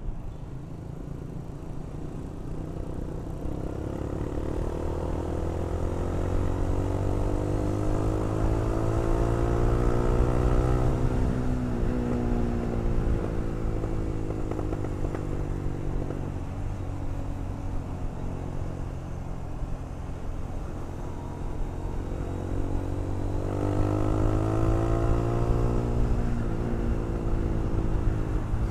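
The engine of the motorcycle being ridden: its pitch climbs steadily as it accelerates for the first ten seconds or so, drops at a gear change near twelve seconds, then eases off. It climbs again in the last five seconds. A steady low rumble runs underneath.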